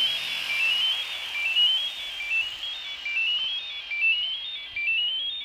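Electronic tones from a prototype LiPo battery monitor's buzzer during a sound test: a short beep melody that climbs in quick steps and drops back, repeating about once a second.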